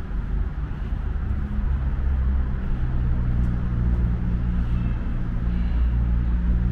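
A motor vehicle's engine running close by: a steady low hum that grows louder about a second and a half in, over general street noise.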